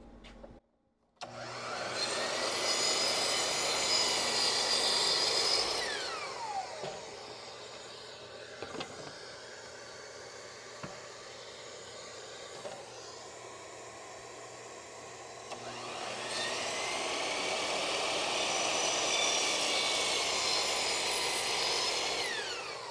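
Sliding compound miter saw running and cutting plywood scraps twice. Each time the motor runs at full speed for several seconds, then winds down with a falling whine. Between the two cuts a lower steady noise continues, with a few clicks.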